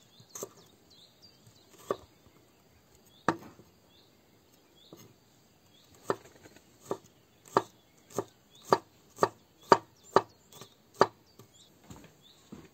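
Chef's knife chopping garlic cloves on a wooden cutting board: a few separate cuts, then a quicker run of knife strikes, about two a second, starting about six seconds in.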